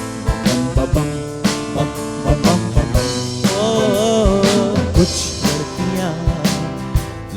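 Unplugged band music: guitars and bass over a drum kit keeping a steady beat, with a wavering, vibrato-laden melody line rising above it in the middle.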